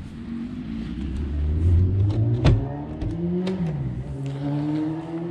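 A motor vehicle's engine accelerating, its pitch rising over the first couple of seconds, dipping briefly and then holding steady. A sharp click comes about halfway through.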